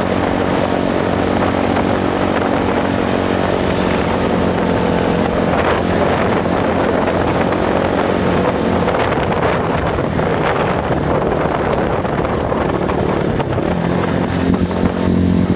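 Enduro motorcycle engine running steadily as the bike rides along a dirt field track, with wind noise on the microphone.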